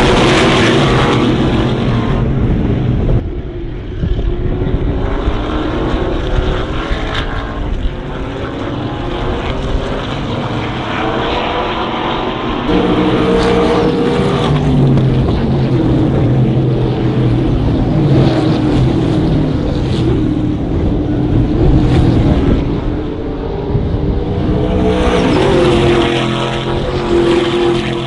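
A field of Trans Am V8 race cars running hard on the track, engines revving up and down through the gears as they accelerate and pass. The sound changes abruptly a few times as the footage cuts between spots around the circuit.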